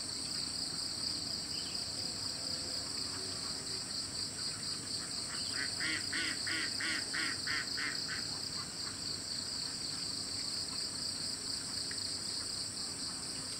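Insect chorus: a steady high-pitched drone with a fast pulse. Near the middle, a bird calls a quick run of about eight short notes.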